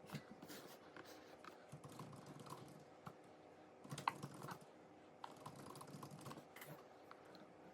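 Soft scattered clicks and taps of a spoon and dishes while a toddler eats, with a louder cluster of taps about four seconds in.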